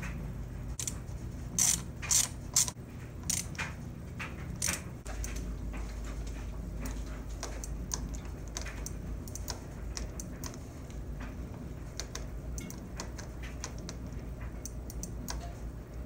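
Sharp metal clicks of a hand tool working the clamp bolts of a sportbike's front brake master cylinder, a handful of irregular clicks in the first few seconds. After that come fainter scattered clicks from the brake lever being handled, over a low steady hum that starts about five seconds in.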